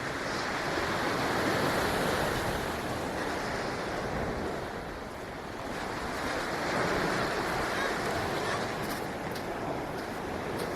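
Ocean surf washing onto the beach, swelling twice and easing between, with wind on the microphone.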